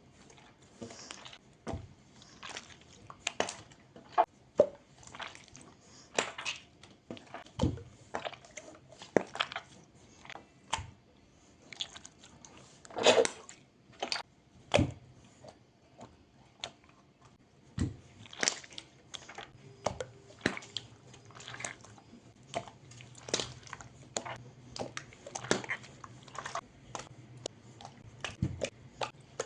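Slime being squeezed and pressed, making irregular sharp pops and clicks, about one or two a second.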